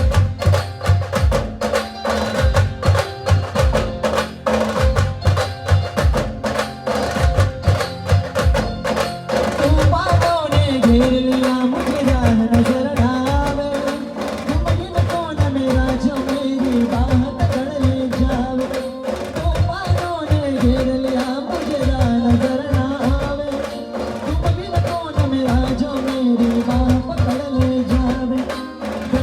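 Live Maharashtrian band playing an instrumental passage of a devotional song: drums beat a dense rhythm, and about ten seconds in a lead melody that bends up and down joins over the drums.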